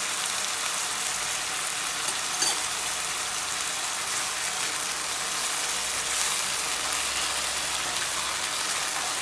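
Beef cubes sizzling steadily in a hot wok, with a single light tap about two and a half seconds in and a spatula stirring the meat near the end.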